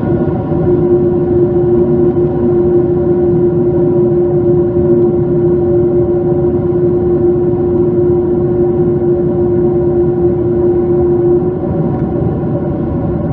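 Boeing 767-300ER cabin noise on approach: steady jet engine and airflow noise heard through the fuselage from a window seat. A steady hum sits over it and fades about eleven seconds in.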